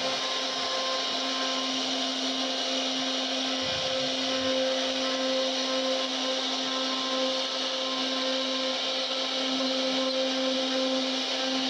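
CNC router spindle running at a steady whine while its bit carves wood, over a continuous rasping cutting noise.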